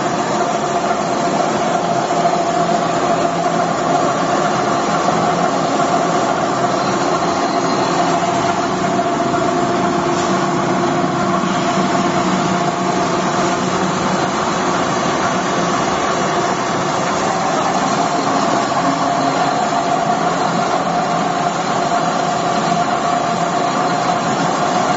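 Vertical ring die pellet mill running steadily while it presses pellets: a constant machine drone with a steady mid-pitched hum that holds level throughout.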